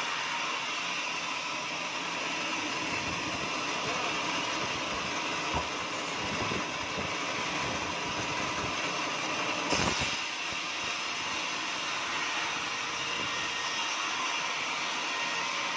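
Band sawmill running with its blade cutting lengthwise through a teak log, a steady whining hiss, with one brief knock about ten seconds in.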